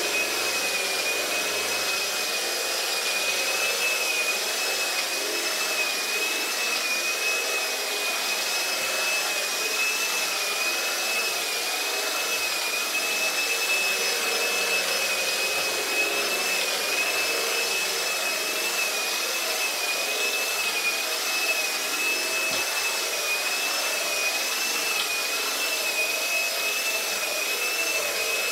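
Old Phonola electric floor polisher running steadily, its hard-bristle brushes spinning on a waxed marble floor to spread the wax evenly. The motor gives a high whine that wavers slightly in pitch as the machine is pushed around.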